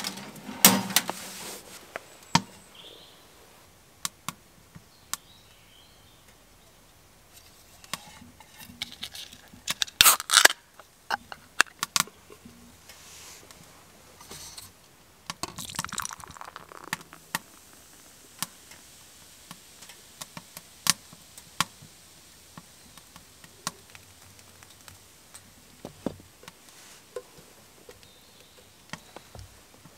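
Tableware being handled on a wooden stick table: scattered light knocks and clicks as a knife, a wooden kuksa cup and a tall can of lager are moved and set down. A tall can of lager is opened and the beer poured into the wooden kuksa, with a louder cluster of sounds about ten seconds in.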